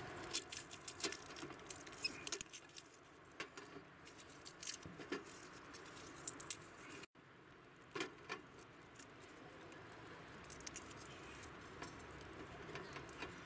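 Knife blade tapping and cutting garlic cloves directly on a metal camp tabletop: small, irregular clicks and taps, with the light rustle of garlic skins being peeled between cuts.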